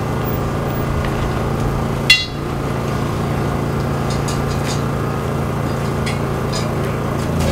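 A steady low hum with one sharp metallic clink about two seconds in, then a few faint light taps. The clinks come from hand work on a festival float's decorations.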